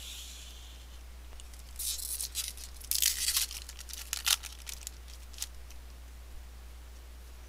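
Wrapper of a 2013 Bowman retail baseball card pack being torn open and crinkled by hand, in short rips about two seconds in and again around three to four seconds, with a few sharp clicks after. A steady low hum underneath.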